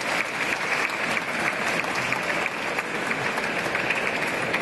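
A small audience applauding, many hands clapping at a steady level.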